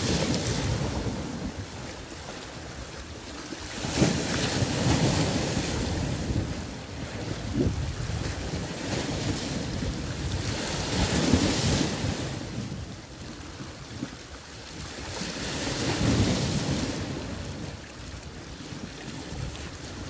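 Small choppy waves washing and lapping against an ice-covered shoreline and rocks, swelling into louder surges three times.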